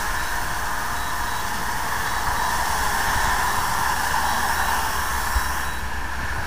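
DJI Mavic Air 2 quadcopter's propellers buzzing steadily as it hovers low and descends, settling on the ground near the end with the motors still running.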